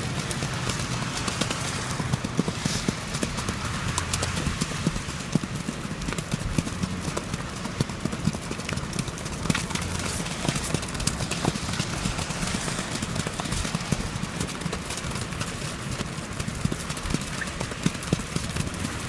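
A horse's hoofbeats in the single-foot, a quick, even four-beat gait in which each hoof lands separately on turf, over a steady background noise.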